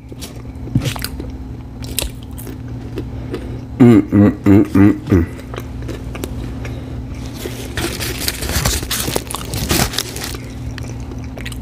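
Close-miked chewing and biting of fast food, with scattered small clicks of mouth and teeth. About four seconds in comes a loud, short throaty vocal sound in about five quick pulses, and later a stretch of crackly noise; a steady low hum runs underneath.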